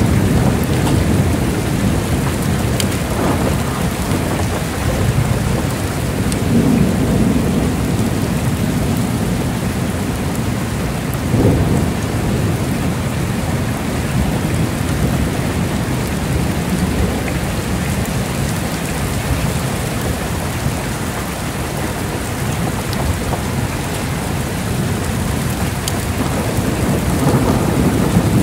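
Heavy rain pouring steadily, with low thunder rumbling and swelling several times, most strongly near the end.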